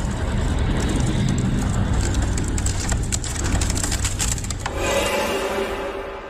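Anime ice-freezing sound effect: a rough grinding, crackling rush over a low rumble, with dense crackles through the middle. About four and a half seconds in it gives way to a held musical chord that fades out.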